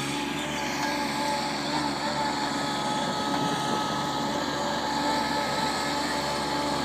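Compact articulated loader's engine running steadily, with a steady whine over it.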